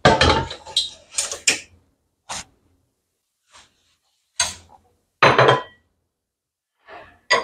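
Ceramic dishes and utensils knocking and clinking as they are handled and set down on a table, in a cluster at first and then single knocks every second or two. The loudest knock, about five seconds in, rings briefly like china.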